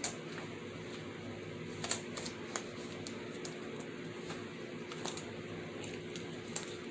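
A disposable glove being pulled on and handled, giving scattered light crinkles and clicks, the sharpest about two seconds in and again near five seconds.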